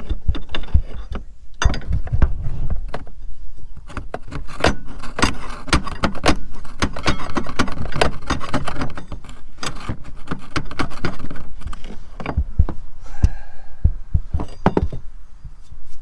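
A tool knocking and rattling against metal deep in the engine bay of a 2003 Mercury Grand Marquis, striking down at the starter of a car that won't crank, where the owner suspects the starter has failed. Irregular clatter throughout, busiest in the middle stretch.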